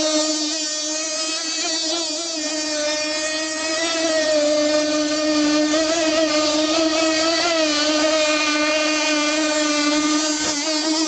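Radio-controlled hydroplane model boat's .21 nitro two-stroke engine running at speed: a steady high-pitched buzz whose pitch wavers slightly up and down.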